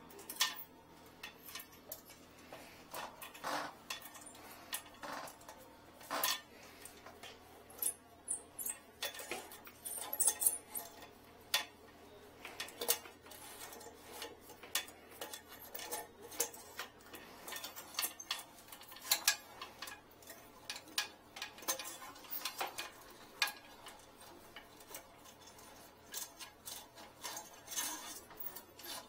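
Irregular clicks, clinks and scrapes of a thin metal retrieval rod being worked down a clogged porcelain toilet bowl, knocking and rubbing against the porcelain as it fishes for a dropped object.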